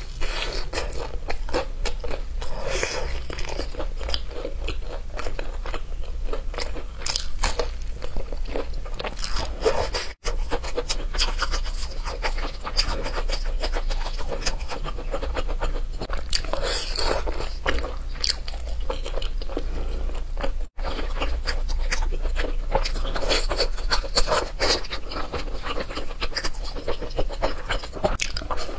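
Close-up crunching and chewing as someone bites into sauce-glazed fried chicken, crisp crackles running on without pause. The sound cuts out briefly twice.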